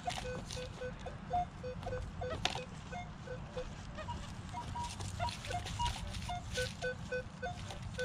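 XP Deus metal detector with an HF coil giving a stream of short beeps at a few different fixed pitches, low and high, as the coil is swept over the ground, responding to small targets in the soil. A few crunching footsteps on dry leaves.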